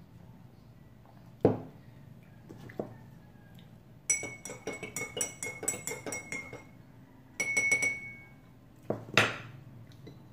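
A metal spoon stirring orange juice in a drinking glass, clinking quickly and ringing against the glass for a couple of seconds, then again briefly. A knock comes about a second and a half in as the glass is set down on the table, and another knock comes near the end.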